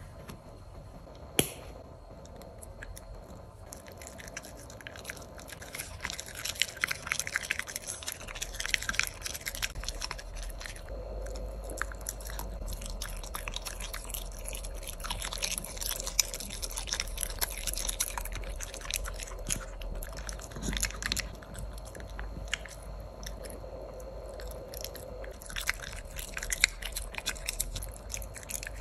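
A Shiba Inu puppy chewing and biting food taken from a hand, a dense run of small irregular crunchy clicks from about five seconds in. A single sharp click comes about a second in.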